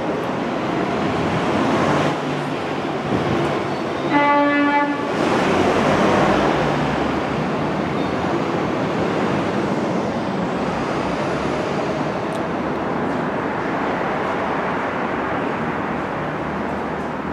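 New York City Subway train running with steady wheel and rail noise, sounding its horn in one short blast about four seconds in.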